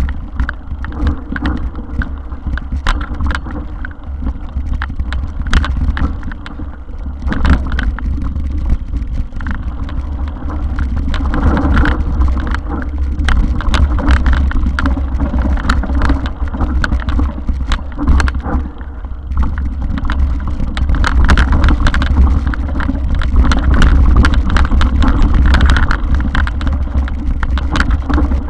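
Mountain bike riding over a rough, stony dirt trail: a steady wind rumble on the microphone with constant rattling and knocks from the bike jolting over stones and roots.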